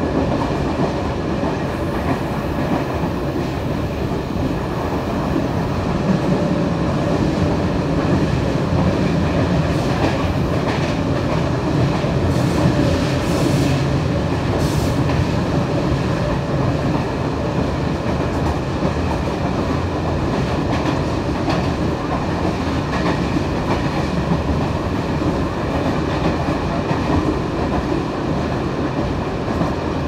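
Trensurb electric commuter train running at speed, heard from inside the carriage: a steady rumble of wheels on the rails with a faint steady whine above it.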